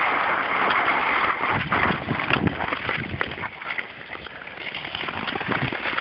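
Long-blade Nordic ice skates gliding and scraping on rough natural lake ice: a steady hiss for the first second and a half, then fainter, irregular scraping strokes.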